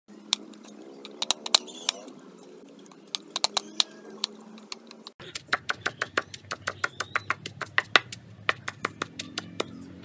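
A cleaver chopping garlic and herbs on a wooden chopping board, sharp irregular strikes; about five seconds in this gives way to a stone pestle pounding herbs in a stone mortar, a quick run of several strikes a second. Faint voices in the background.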